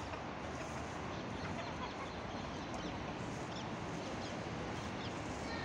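Farmyard ambience: a steady outdoor hiss with a few faint, short chicken clucks.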